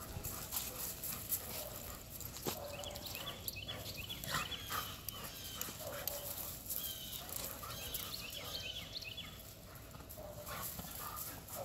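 Dogs romping and chasing each other on dirt and leaf litter, with many short paw scuffs and clicks.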